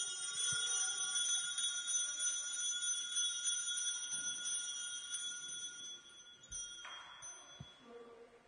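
Altar bells ringing at the elevation of the chalice, just after the words of consecration at Mass. A cluster of high, shimmering ringing tones holds for several seconds, then fades and stops about seven seconds in.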